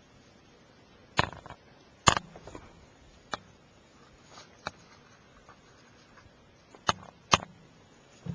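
A few sharp clicks and knocks close to the microphone, typical of handling noise on a small handheld camcorder: two loud ones a second apart, two fainter ones, then two more loud ones close together near the end, over a quiet background.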